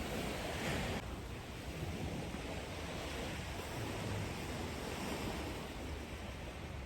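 Small waves washing on the shore of a calm sea, a steady hiss with a low rumble of wind on the microphone.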